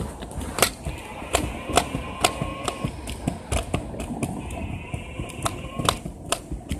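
Scooter rolling along a concrete sidewalk, its small hard wheels and frame rattling with irregular sharp clicks and knocks over a low rumble.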